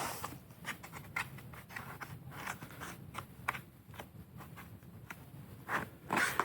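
Cardboard shipping box being handled: scattered light taps, clicks and rustles.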